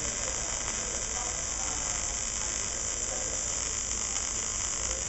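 Welding arc burning with a steady, even sizzling hiss and a low hum underneath.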